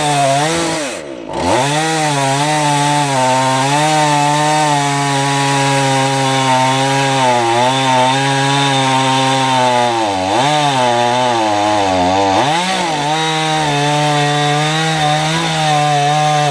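Dnipro 42 two-stroke chainsaw running at high revs while sawing through a thick poplar log with a dull chain. Its pitch dips briefly about a second in and twice more later on.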